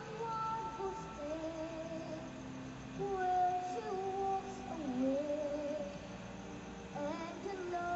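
A high voice singing a slow melody over instrumental backing, with long held notes that waver slightly.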